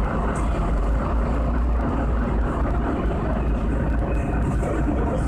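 Irisbus Agora city bus heard from inside its passenger cabin: a steady low engine rumble with a spread of cabin noise, unchanging throughout, and a brief faint squeak about four seconds in.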